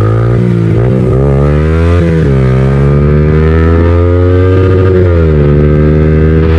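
Yamaha MT-15's 155 cc single-cylinder engine through an aftermarket full-system exhaust, revving under throttle while riding. The pitch rises, drops about two seconds in, climbs slowly again and eases off near the end.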